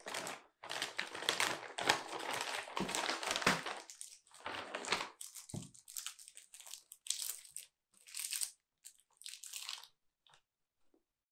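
Plastic snack bag being pulled open and crinkled, then a small chocolate bar wrapper crinkling as it is unwrapped, in shorter separate bursts that stop about ten seconds in.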